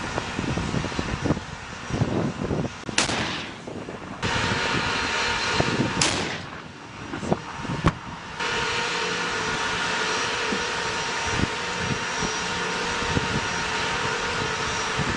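Abrams tanks firing their main guns: two heavy blasts about three seconds apart, each trailing off, then a sharper crack just under eight seconds in. After that comes the steady whine of the tanks' gas-turbine engines.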